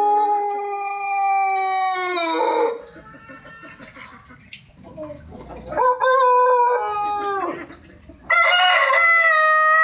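Pelung rooster crowing: the drawn-out end of one long crow that falls in pitch and breaks off about two and a half seconds in, a shorter crow about six seconds in, and another long crow starting near the end.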